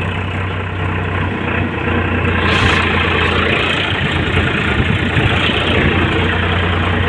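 Powertrac tractor's diesel engine running steadily as the tractor drives off, with one brief sharp noise about two and a half seconds in.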